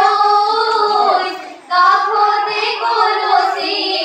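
A group of teenage girls singing an Assamese biya naam (traditional wedding song) with long held, wavering notes, pausing briefly for breath near the middle before the singing resumes.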